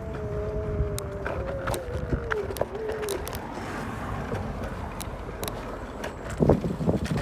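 Bird electric rental scooter being ridden, with wind rumbling on the microphone, scattered clicks and rattles, and a steady two-note whine that wavers and falls away about three seconds in. A louder gust hits near the end.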